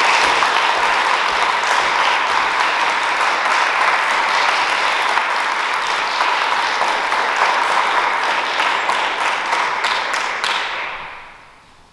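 Audience applauding, thinning to scattered claps and dying away near the end.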